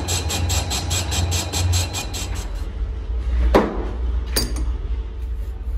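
Metal lathe turning a large rough-cast compressor piston blank, the cutting tool making a fast rhythmic chatter of about five beats a second over the machine's low hum. The cutting stops a little over two seconds in, and two sharp metallic knocks follow about a second apart.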